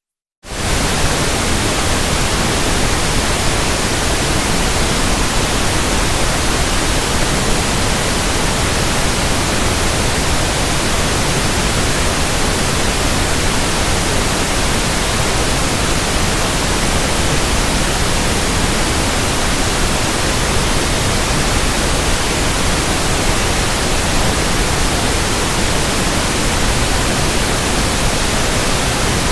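Steady pink noise, a synthetic run-in (burn-in) signal for breaking in new speakers or headphones, starting a moment after a brief silence and holding an even level throughout.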